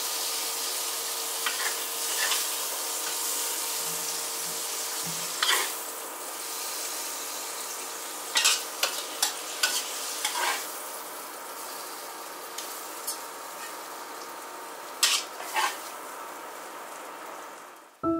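Winter bamboo shoots and cured pork sizzling as they are stir-fried in a wok, with a steady hiss and a few sharp clatters of the spatula against the pan; the sizzling fades out near the end.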